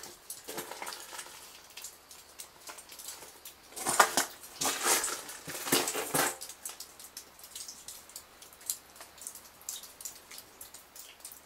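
Footsteps and small knocks on a gritty floor, loudest in a cluster from about four to six seconds in, then scattered light clicks.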